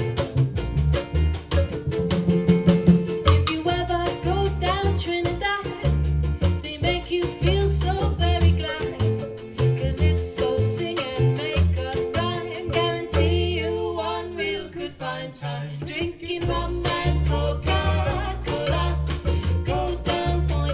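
Background music with a steady beat, bass and a singing voice.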